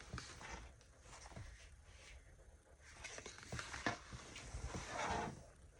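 Paper sticker sheets being handled: soft rustling and a few light taps, with a louder rustle about five seconds in.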